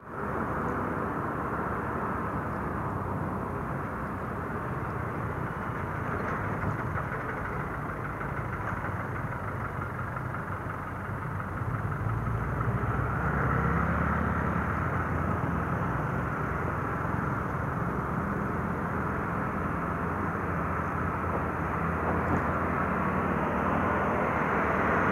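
Motor scooter underway in city traffic: a steady engine drone mixed with wind rush, getting a little louder about twelve seconds in.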